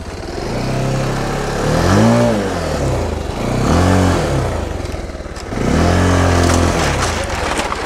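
Bajaj Pulsar 220F's single-cylinder engine running at low speed under short bursts of throttle. It is blipped three times, its pitch rising and falling with each, and the last burst is held longer.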